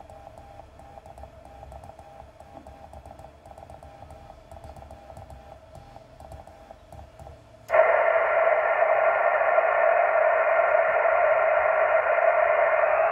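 Yaesu transceiver receiving Morse code on 40 metres: a faint, evenly keyed CW tone sits under low hiss, then about eight seconds in the receiver hiss jumps suddenly to a loud, steady rush. The jump comes as the DSP filtering is switched off.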